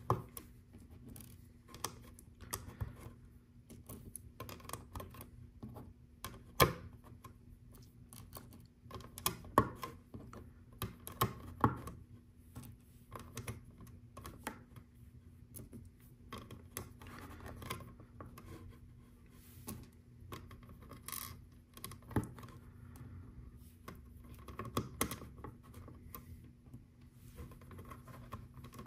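Small round LEGO pieces being pressed onto a LEGO baseplate by hand and picked from a loose pile: irregular plastic clicks and light scraping, with a few louder snaps about 7, 10 and 12 seconds in.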